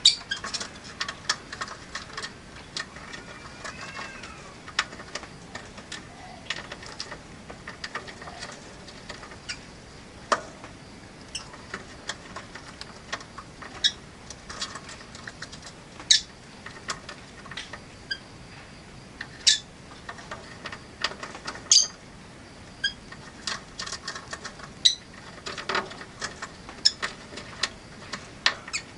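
Rosy-faced lovebirds chirping: many short, sharp, high chirps and clicks at an irregular pace, with a few louder calls standing out now and then.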